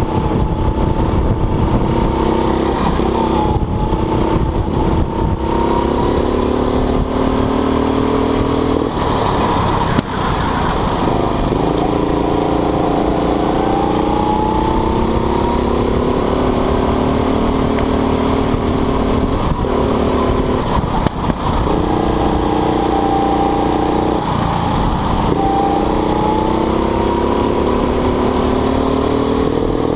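Go-kart engine running at racing speed, heard from on board. Its pitch climbs steadily along the straights and drops suddenly several times as the throttle is lifted for corners.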